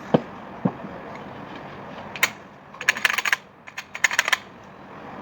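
Two dull knocks, then bursts of sharp metallic clicking and rattling from a Taurus TS9 9mm pistol being handled between shots.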